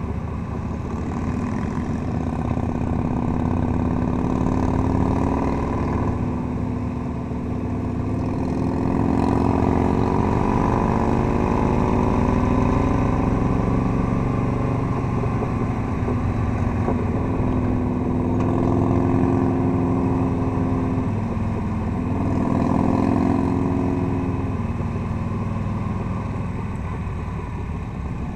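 Touring motorcycle's engine heard from the rider's seat, its pitch rising and falling several times as the bike accelerates and eases off through a series of bends.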